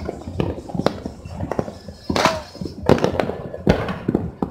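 New Year's Eve firecrackers and fireworks going off all across the city: a dense, irregular string of bangs and pops, some sharp and close, others fainter and farther off, several a second.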